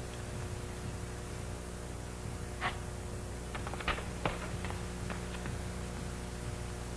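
A steady low hum with a few faint clicks and knocks about two and a half to four and a half seconds in, fitting footsteps and small handling sounds as someone walks.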